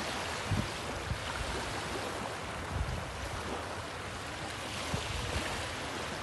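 Small waves washing up on a flat sandy beach, a steady surf hiss. Wind knocks on the microphone now and then in short low thumps.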